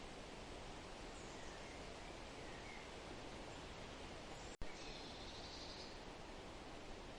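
Faint forest ambience: a steady rustling hiss of leaves and wind, with a few soft bird chirps in the first half and a short buzzy trill about five seconds in. Just before the trill the sound cuts out for a split second with a click, like an edit splice.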